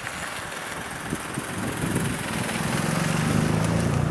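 Ol12-7 steam locomotive approaching under steam, its exhaust chuffing. A low running rumble comes in about halfway through and the sound grows steadily louder.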